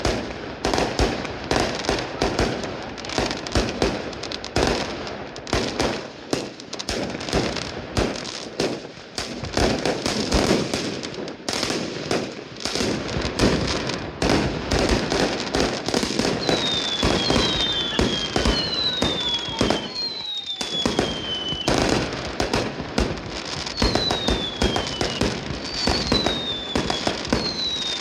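Fireworks display: a rapid, continuous barrage of bangs from shells bursting overhead. From about halfway through, a series of falling whistles sounds over the bangs, roughly one a second.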